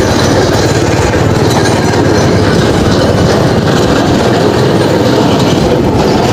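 Steady, loud vehicle noise while travelling: engine and road rumble with wind on the microphone.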